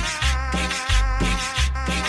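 Cumbia music: a deep bass note landing about every two-thirds of a second under a held melody and busy high percussion.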